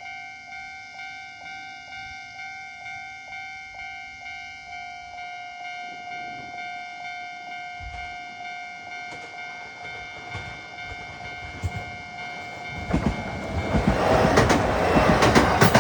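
Japanese level crossing's warning bell ringing steadily, about two strikes a second. About 13 seconds in a train reaches the crossing and passes over it, its wheels clacking on the rail joints, louder than the bell.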